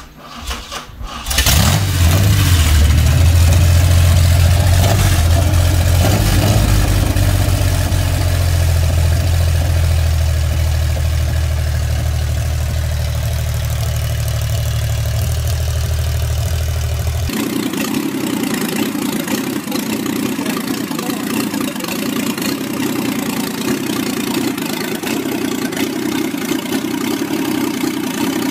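Buick 231 V6 in a bare rolling chassis cranking briefly and catching about a second and a half in, then running with the uneven beat of an odd-firing 90-degree V6. About 17 seconds in, it cuts to a second odd-firing V6 running on an engine stand, its note pitched higher.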